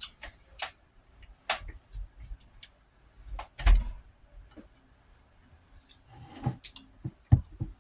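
Scattered sharp clicks, clinks and knocks of eating utensils and dishware being handled during a meal, with a few heavier knocks about three and a half seconds in and again near the end.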